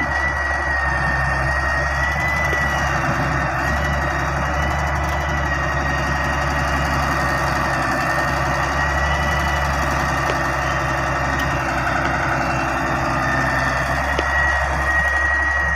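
Diesel engine of heavy machinery running steadily, with a constant high-pitched whine over the engine sound.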